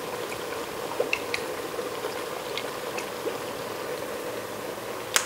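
Cabbage, carrots and ground meat steaming and simmering in an Instant Pot's stainless inner pot: a steady soft bubbling, with a few faint ticks and one sharp click just before the end.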